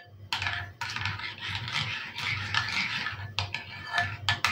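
Metal spoon stirring a thick crème fraîche and fromage blanc mixture in a ceramic bowl: continuous scraping and rubbing against the bowl, with a few sharp clinks that ring briefly.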